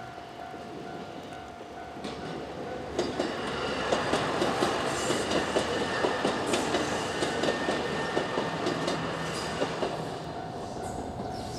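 KiHa 189 series diesel limited express train passing over a level crossing, its wheels clacking rhythmically over the rail joints. It comes in about two to three seconds in, is loudest through the middle and eases off near the end. The crossing's warning bell rings steadily throughout.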